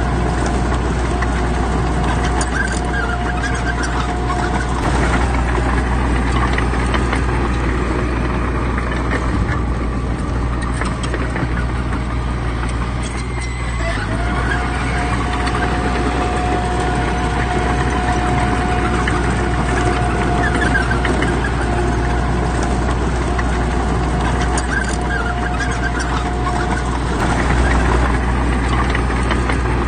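Heavy earthmoving machinery running steadily under work, with a deep engine rumble and a thin steady whine that breaks off briefly about halfway through.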